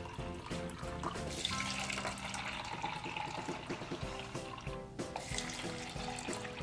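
Water poured from a plastic cup into plastic cups of Orbeez beads, splashing and trickling, louder from about a second and a half in, over background music.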